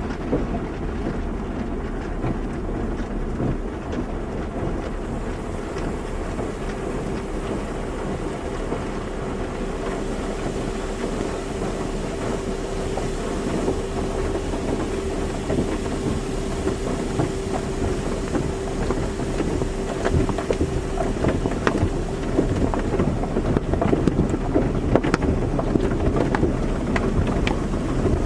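Car wash running: a steady rush of water spray and machinery noise, with a steady hum from the equipment that comes in about six seconds in and stops about two-thirds through. Scattered ticks and knocks of spray or brushes become more frequent near the end.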